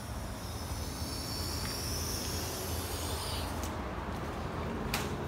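Outdoor background noise: a steady low hum with a high buzz of insects that dies away about three and a half seconds in, and a sharp click near the end.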